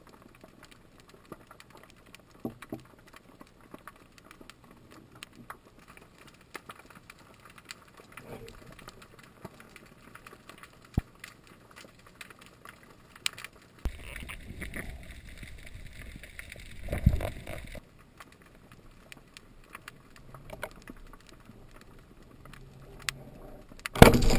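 Underwater sound picked up by a diver's camera: scattered small clicks and crackles, with a few seconds of louder, muffled rumbling water noise about two-thirds of the way through and a sudden loud burst at the very end.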